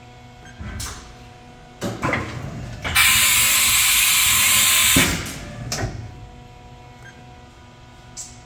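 1997 Haas VF-4 CNC mill's 20-tool changer running a tool change: mechanical clunks and clatter, then a loud hiss of air lasting about two seconds as the tool is released from the spindle, then more clunks as the new tool is clamped.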